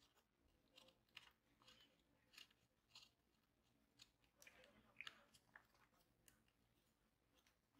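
Faint, scattered small clicks and scrapes of a small screwdriver turning tiny screws into an aluminium RAM heatsink.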